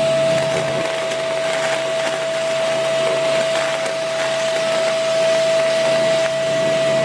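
Vacuum cleaner running with a steady high whine over a lower hum, sucking foil confetti off a tabletop, with a few small ticks as pieces are drawn into the nozzle.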